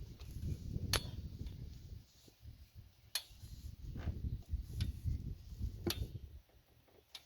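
Sharp clicks, several in a row about a second apart, over a low rumble: hand tools working the cylinder head bolts on an engine.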